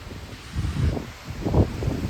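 Heavy rain hissing steadily while strong wind gusts buffet the microphone in irregular low surges.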